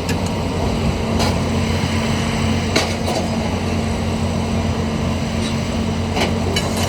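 A heavy engine running steadily with a low, even hum, broken by a few short sharp knocks.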